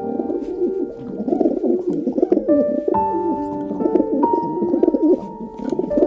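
Feral pigeons cooing continuously in low, warbling coos, over soft background music with long held notes.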